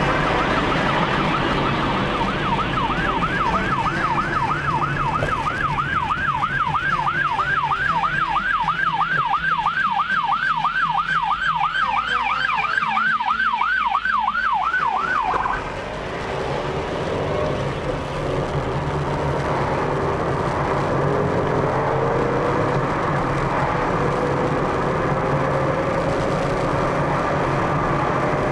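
Ambulance siren sounding a fast rising-and-falling yelp, about three sweeps a second, as the ambulance passes alongside, cutting off suddenly about halfway through. After it stops, steady car road noise is heard from inside the cabin.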